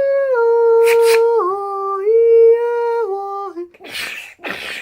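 Vocal sound effect of dreams breaking: a person humming long held notes that step down in pitch, then breaking off into two short, breathy, noisy bursts near the end.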